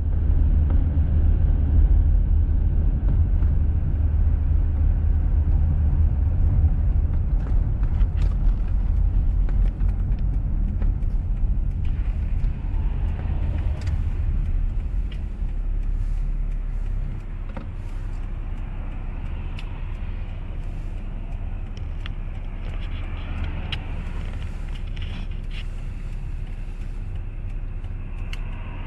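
Car driving along a road: a steady low rumble of engine and tyres, heard from inside the moving car, easing off a little about two-thirds of the way through.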